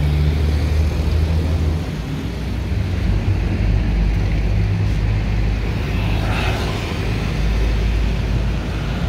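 A motor vehicle's engine running with a low, steady rumble, over road traffic noise.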